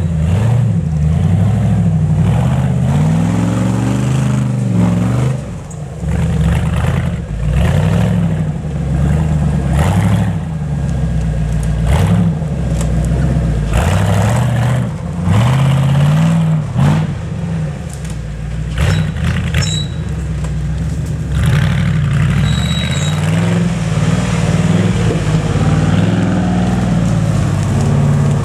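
Off-road competition vehicle's engine revving up and down over and over, the pitch rising and falling every couple of seconds as it works through the terrain.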